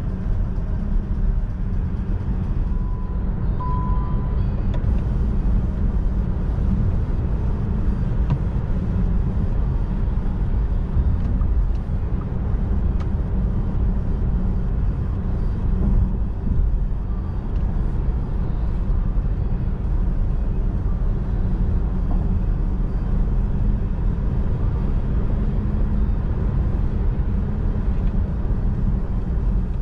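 Steady tyre and wind rumble inside the cabin of a Volkswagen ID.3 electric car at highway speed as it speeds up. A short beep sounds about three seconds in.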